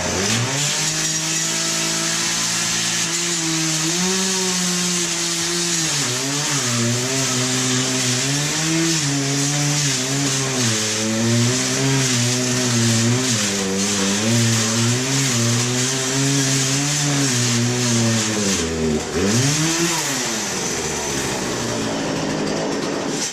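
Chainsaw running under load as it cuts into a computer's metal case, with a harsh high grinding of chain on metal. Its motor pitch keeps sagging and recovering, and it bogs down hard about 19 seconds in before revving back up. It cuts poorly, as a chainsaw is not meant for metal, and the sound cuts off abruptly at the end.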